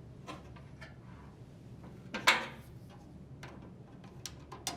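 Scattered light plastic clicks and knocks from handling the washer's control panel and its wire harness connector, with one louder knock a little over two seconds in and a few small clicks near the end.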